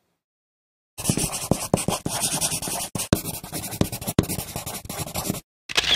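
Scratchy, crackling noise of an edited-in intro sound effect, full of sharp clicks, starting about a second in and cutting off abruptly near the end, with one short burst of the same just after.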